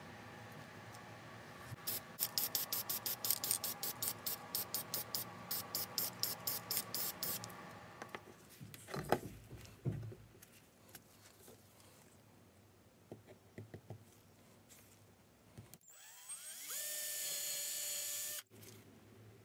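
Cordless drill spinning up and drilling into a wooden block for about two and a half seconds near the end; its whine rises in pitch as it starts. Earlier comes a fast run of sharp clicks, about five a second, for several seconds, then a single knock.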